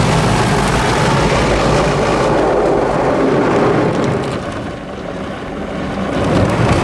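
Rotating brushes of an automatic rollover car wash scrubbing over the car with water spraying, heard from inside the cabin: a loud, steady swishing over a low rumble, which eases briefly about five seconds in and then builds again.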